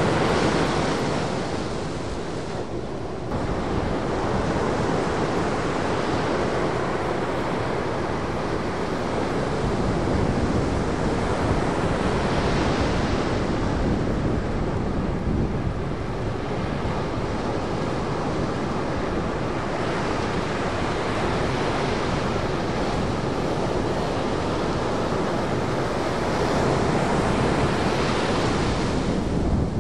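Shorebreak surf breaking and washing on the beach in a continuous wash of noise, with wind buffeting the microphone and a deep rumble underneath. The sound dips briefly about three seconds in.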